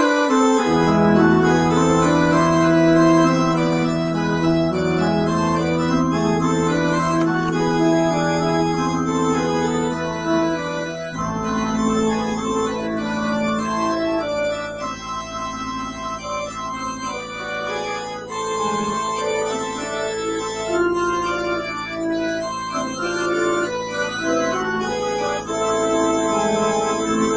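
Organ playing a postlude to close the service: sustained chords over long-held bass notes, with the bass moving to a new note about eleven seconds in.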